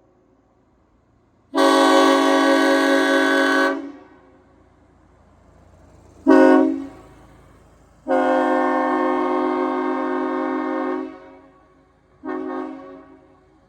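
Nathan AirChime M5 five-chime train horn sounding four blasts, a chord of steady tones: long, short, long, short.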